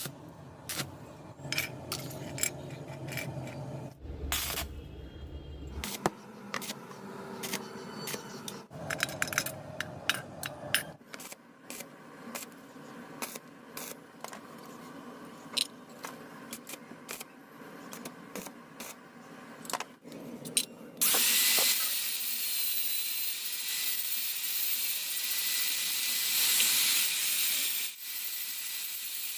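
Many sharp metallic clicks and taps, as metal parts are handled and tapped. About two-thirds of the way through, a loud, steady hiss starts suddenly and runs for several seconds before dropping back.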